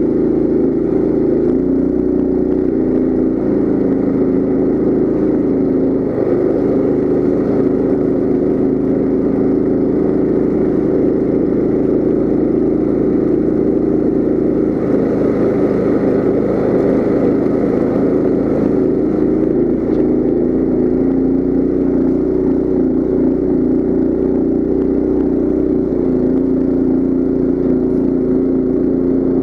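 Coleman CT200U mini bike's small single-cylinder engine running steadily under load as it is ridden, its pitch shifting a little now and then.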